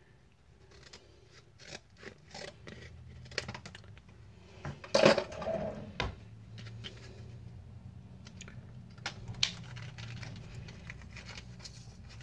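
Scissors snipping through a plastic-and-cardboard microSD card retail pack, a scattered series of sharp snips and crackles. The loudest comes about five seconds in, followed by plastic packaging being handled.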